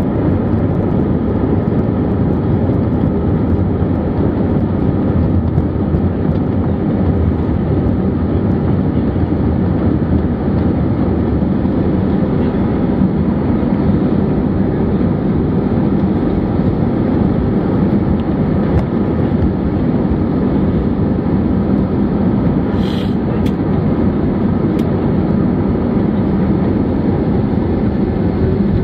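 Steady cabin rumble of an Airbus A321-200 rolling on the ground after landing, with the engines running at low power and the wheels rumbling over the taxiway. A few faint clicks come near the end.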